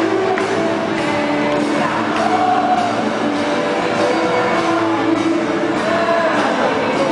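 Indonesian rock band playing live: amplified guitars and sung vocals, loud and continuous.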